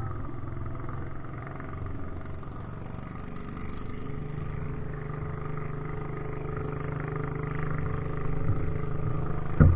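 An engine running steadily, getting a little louder about four seconds in and again near the end.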